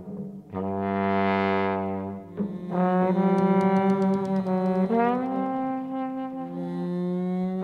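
Large jazz ensemble's horn section, trombone and trumpet with saxophones, playing long held notes. A single note swells in brightness and is followed by a fuller sustained chord. Near the middle the voices slide upward into a new chord.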